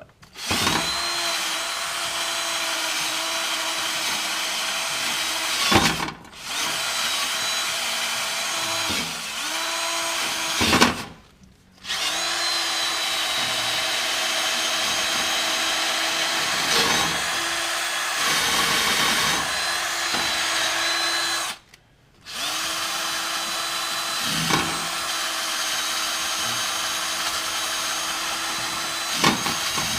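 Cordless drill spinning a metal wire wheel against a rusty steel vehicle frame, a steady motor whine with a scraping rasp, brushing the rust off. The trigger is let off three times: a short dip about a fifth of the way in, a full stop of about a second near the middle, and another about two-thirds through.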